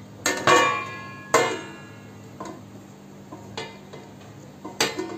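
A stainless-steel lid set down on a metal kadai: two ringing metallic clanks about a second apart, followed by a few lighter clinks as the lid is settled.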